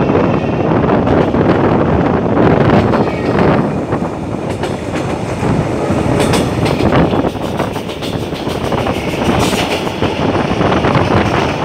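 SE5 passenger train running along the track, heard from the doorway of one of its coaches: a steady rumble of the moving train with the wheels clacking over the rail joints.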